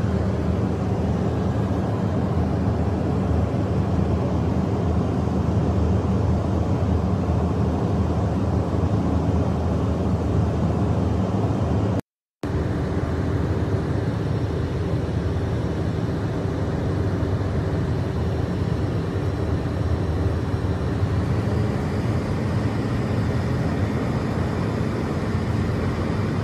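Steady aircraft cabin noise: a constant low rumble with a hiss above it, cutting out to silence for a moment about twelve seconds in.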